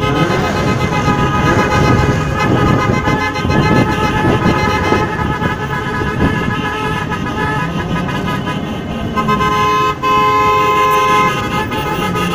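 Several car horns sounding together and held on in a car convoy, their pitches shifting a few times, with a strong single horn tone near the end, over car engines and road noise.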